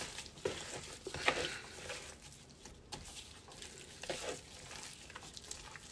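Gloved hand tossing and rubbing raw, seasoned chicken breasts in a plastic bowl: faint, irregular squishing and rubbing strokes.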